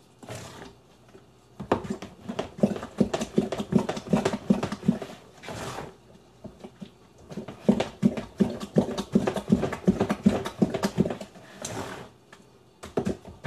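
Gloved hands mixing and squeezing wet grated green-banana pastel dough in a glass bowl. Quick, irregular strokes come in runs, with short pauses about six seconds in and near the end.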